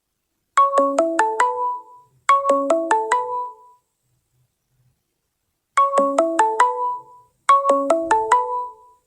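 Google Hangouts incoming-call ringtone playing from a Samsung Galaxy phone's speaker. A quick run of about six short pitched notes sounds twice in a row, then after a pause of about two seconds sounds twice again, as the call keeps ringing.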